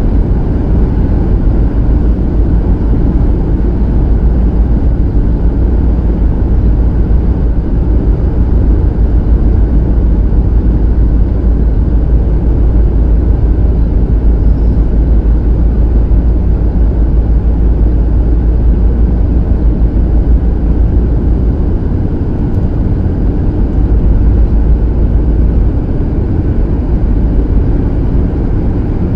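Steady low rumble of a car driving on a snow-covered road, heard from inside the car: tyre and engine noise.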